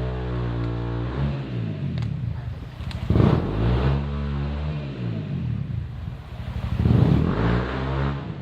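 A motorcycle engine revving, its pitch rising and falling as the throttle is worked, with two loud bursts of throttle about three and seven seconds in.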